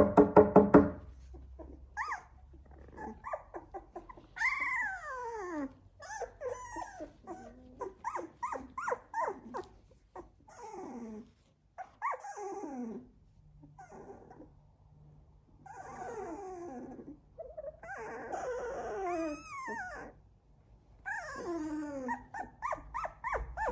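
A 16-day-old Labrador puppy whining and whimpering: many short cries that fall in pitch, coming in runs with short pauses between them.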